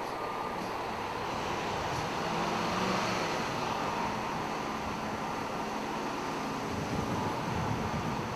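Fire engine's diesel engine running at low speed as the truck backs slowly into the firehouse bay, over a steady hum of street traffic.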